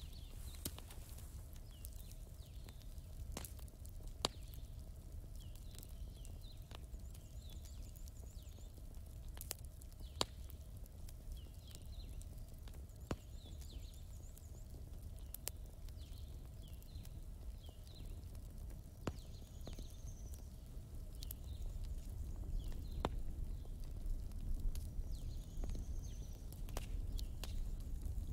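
Outdoor ambience: a low rumble with scattered sharp clicks and many short, high chirps repeating throughout, and a couple of brief falling whistles in the second half.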